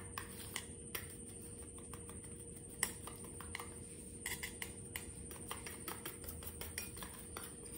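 Faint, irregular clicks of a metal spoon against a small stainless steel bowl as it is stirred, with one sharper clink about three seconds in. A faint steady high-pitched whine runs underneath.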